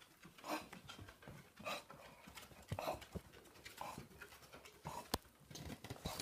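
A dog breathing noisily in short, breathy bursts, about one a second, with a single sharp click about five seconds in.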